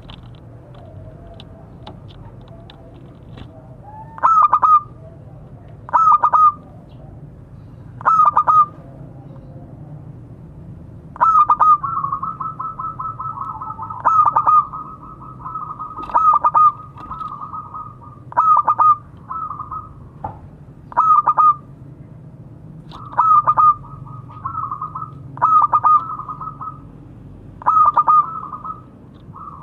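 Zebra dove (perkutut) cooing. Starting about four seconds in, a loud clipped coo phrase comes roughly every two seconds, and several run on into fast rolling trains of coos. It is the dove's call to its companions, the kind used as a lure call for other zebra doves.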